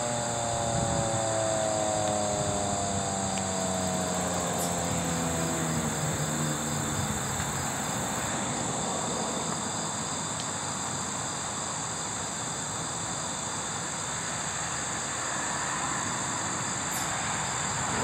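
Federal Signal 2001-SRN outdoor warning siren winding down at the end of its full-alert cycle, its tone falling slowly and fading out over the first seven seconds or so. Insects chirp steadily throughout.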